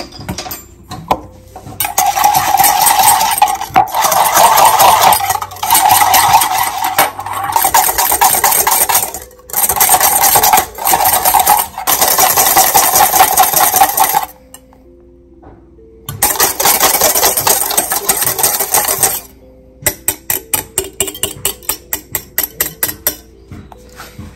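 Wire whisk beating instant coffee, sugar and water in a stainless steel bowl into whipped dalgona coffee: a fast, dense rattle of wire against steel. It stops briefly twice, then goes on as slower separate strokes, about four a second, near the end.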